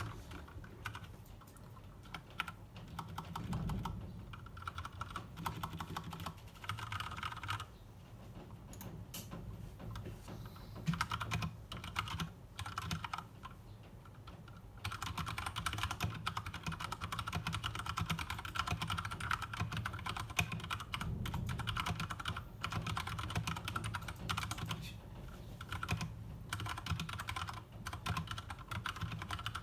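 Typing on an Akko 3068 mechanical keyboard with MX Brown tactile switches: keystrokes in short runs at first, then steady fast typing from about halfway through.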